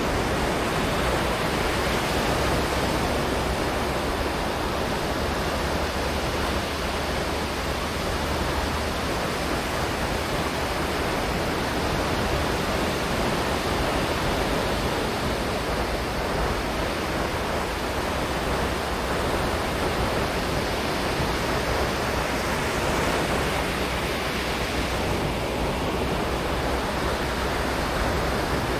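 Sea surf on a sandy beach: a steady, continuous rush of breaking waves.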